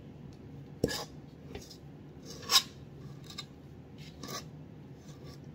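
A tablespoon scooping sticky cookie dough in a metal mixing bowl, giving a few short scrapes and clinks of spoon against bowl. The loudest comes about halfway through.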